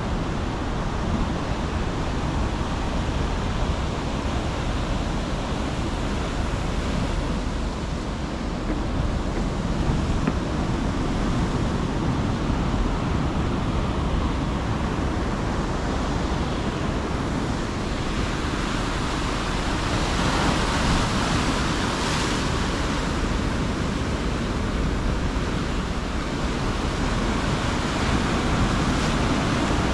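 Ocean surf breaking and washing over shoreline rocks, a continuous rush that swells louder about two-thirds of the way through.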